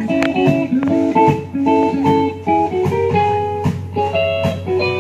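Fiddle-band instrumental with plucked guitar: a quick run of melody notes over a steady bass, no singing.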